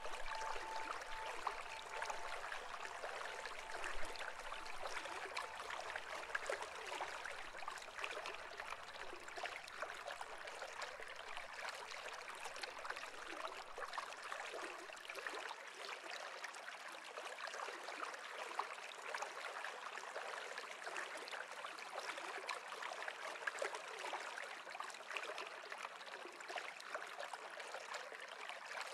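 Running water of a stream, a steady babbling rush. A faint high tone fades out about two seconds in.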